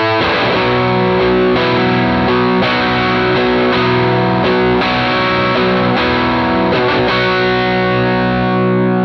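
Electric guitar through the Curve clean boost pedal into a valve amplifier, pushed into a thick, overdriven tone rich in overtones. Chords are struck about once a second, and the last one, about seven seconds in, is left ringing out.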